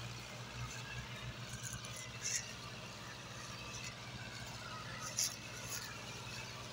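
Two Holland farm tractors' diesel engines running steadily together under load as they haul a heavily loaded sugarcane trolley, a low, even drone. Two brief sharp clicks sound over it, a little over two seconds in and about five seconds in.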